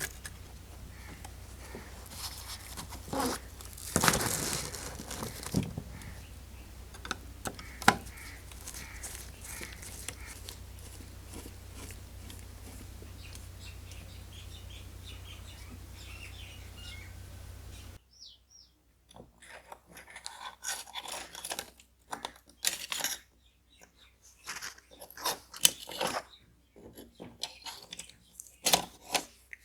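Scattered clicks, scrapes and light knocks of small metal and plastic parts being handled and worked on a die-cast scale model car. A steady low hum sits under the first part and cuts off abruptly about two-thirds through, after which the clicks and scrapes go on, sharper and more spaced out.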